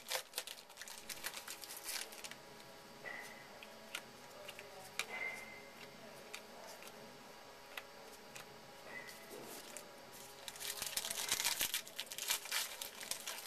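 Baseball card pack wrapper crinkling and tearing as it is opened, in two spells of rustling: one at the start and one about two-thirds of the way through, with quieter handling between.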